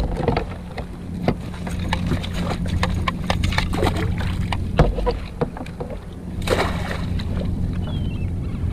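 Wire-framed crab hoop net being dropped back over the side of a kayak: the rings, mesh and line knock and rattle, with a splash of water as it goes in, over a steady low hum.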